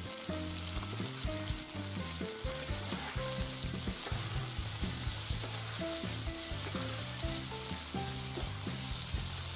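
Potatoes, mushrooms and salo frying in hot lard in a wide pan: a steady sizzle. A slotted spatula stirs through the pan, scraping and clicking against it.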